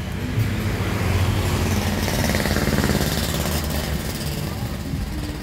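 Engine running with a fast, rough pulsing, swelling to its loudest about one to three seconds in.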